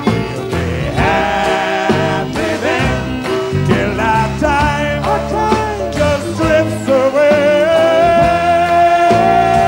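Live folk-rock band music with singing, ending on a long held note from about seven seconds in.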